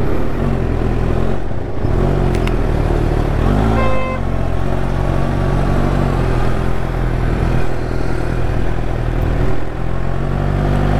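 Kawasaki Ninja H2's supercharged inline-four engine running at low speed, with short throttle blips, the pitch rising and falling, about two and four seconds in. A brief steady high tone sounds just after four seconds in.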